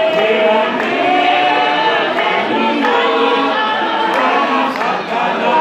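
A congregation singing together as a choir in a call-and-response style hymn, with hands clapping along.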